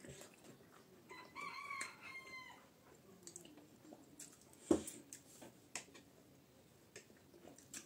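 A rooster crows once in the background, about a second in, for about a second and a half, the call dropping a little at its end. Around it are small clicks of a fork and spoon on plates, with one sharper knock near the middle.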